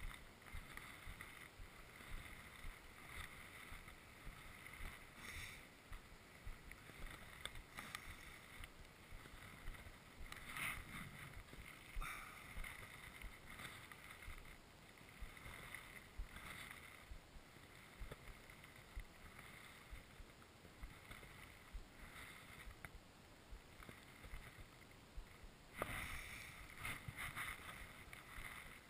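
Faint, irregular crunching of slow footsteps in packed snow, about one step every second or so.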